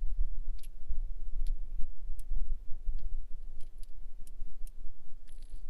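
Small sharp metallic clicks from a revolver being handled at the cylinder, as in loading or unloading cartridges, about a dozen at uneven intervals. Under them runs a steady low rumble of wind on the microphone.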